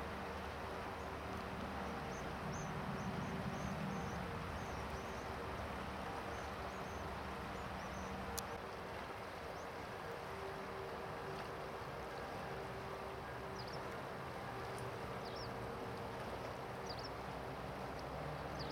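Steady rush of the Rhine's current flowing past the bank, with faint high chirps scattered through and a faint steady low hum. A single sharp click about eight seconds in.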